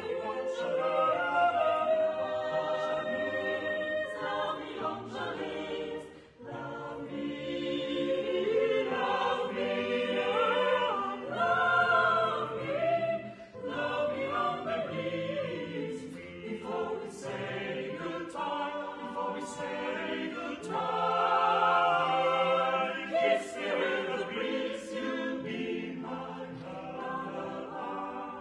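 Mixed choir of men's and women's voices singing a cappella in sustained, shifting chords, with short breaks between phrases about six and thirteen seconds in.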